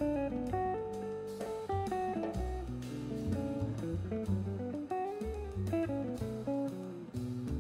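Background music: a plucked guitar melody stepping through short held notes over a bass line.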